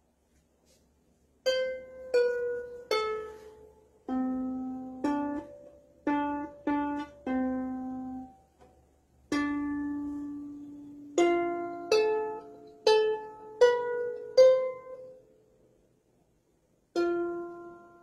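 Strings of a small wooden lap harp plucked one note at a time by a cat's paw. About fifteen single notes, higher and lower, each ringing and fading, come at an uneven, halting pace with short pauses between.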